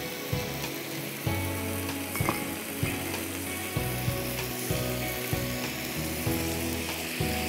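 Thin beef strips sizzling as they fry in hot oil in a frying pan, with dark soy sauce just added, plus occasional short knocks.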